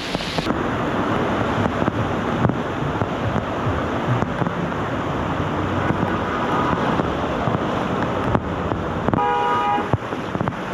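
Steady rush and slosh of floodwater in a flooded street, with wind buffeting the microphone. A short horn-like tone sounds about nine seconds in.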